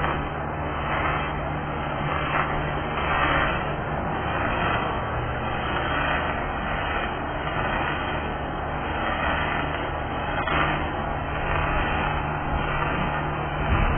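Wire-feed welding arc crackling steadily as one continuous bead is run along a steel beam, with a low steady hum underneath.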